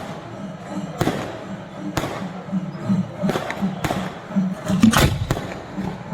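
Fireworks going off in a string of sharp bangs, roughly one a second, the loudest about five seconds in, over a steady low background din.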